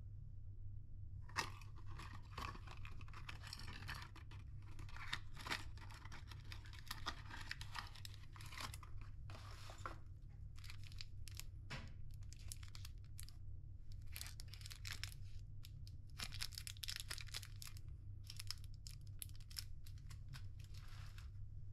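Rustling, crinkling and light clicks of small cardboard and plastic packaging handled and opened by hand: a cardboard sewing-kit box and its clear plastic tray, then a plastic tube of cotton buds. The handling starts about a second and a half in and comes in spells, with a steady low hum underneath.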